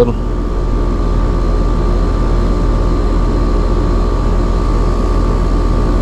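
Outdoor unit of a 2011 Arcoaire R-410A heat pump running: steady compressor hum and condenser fan noise with a constant higher whine above it.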